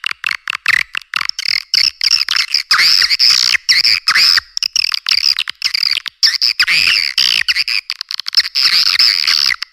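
Swiftlet lure call: dense, rapid, high-pitched twittering and chattering chirps of swiftlets with no let-up, the kind of call track played to draw swiftlets into a nest house. Everything below the birds' range is cut away.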